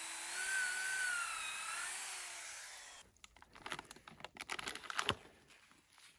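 Electric drill boring spawn-plug holes into a shiitake log: a high whine whose pitch dips as the bit bites into the wood, stopping about three seconds in. It is followed by a quick series of knocks and clicks.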